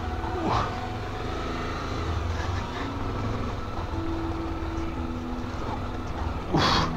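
Honda XRE300 single-cylinder motorcycle engine running at low revs while riding slowly down a rough, rocky dirt track, a steady rumble. A brief burst of noise near the end is louder than the engine.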